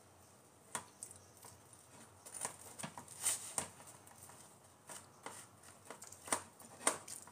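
Metal fork clicking and tapping against a plate, a string of irregular light clicks, the loudest a little after three seconds in and twice near the end.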